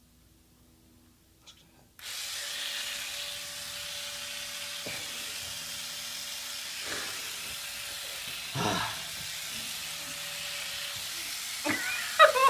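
Electric epilator switched on about two seconds in, running with a steady whirring hiss as it is worked over chest hair. Near the end a man cries out in pain.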